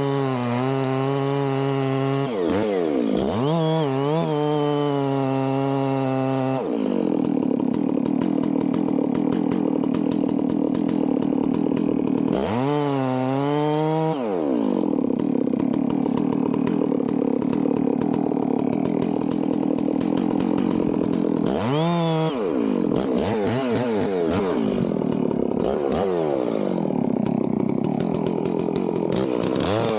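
Chainsaw cutting into acacia wood during tree felling. It runs steadily at high revs, then settles into long cuts under load, with brief drops and climbs in engine pitch a few times between cuts.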